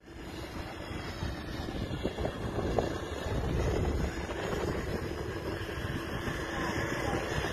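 Strong wind blowing across a phone microphone: a steady rushing noise, heavy in the low end, driven by an approaching dust storm front.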